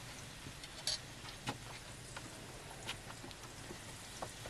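Battered potato slices frying in hot oil in a wok over a wood fire: a steady sizzling hiss with a few sharp crackles.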